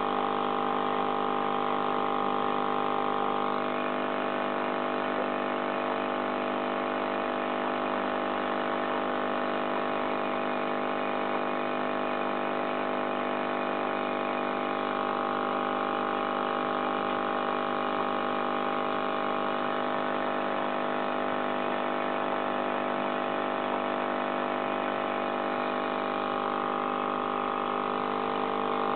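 Aquarium pump humming: a steady, even drone that holds throughout.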